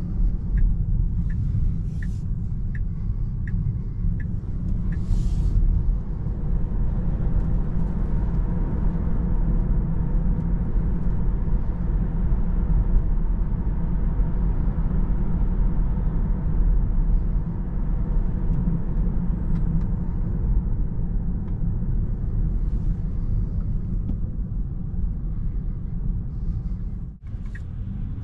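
Tyre and road noise inside the cabin of a Tesla Model 3 electric car, steady and low-pitched, with no engine note. For the first few seconds the turn-signal indicator ticks about twice a second.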